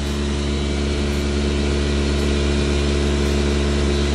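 A motor-driven machine running steadily with a low hum and a hiss.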